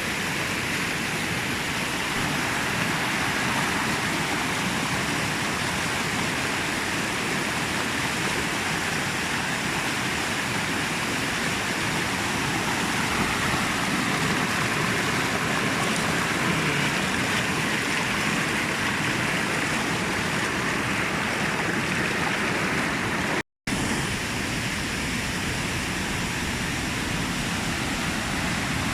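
Kunthipuzha river rushing steadily over the rocks at Kuruthichal: a dense, even roar of fast water, swollen and strong after heavy rain. It drops out for a split second near the end.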